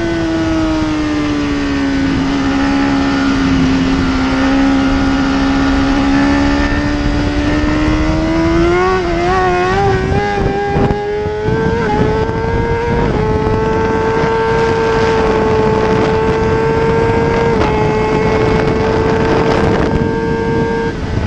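BMW S1000RR superbike's inline-four engine heard onboard at racing speed, with wind rush. The engine note falls over the first couple of seconds, holds low through a corner, climbs with a warble around the middle, steps up, and then holds high and steady, dipping briefly near the end.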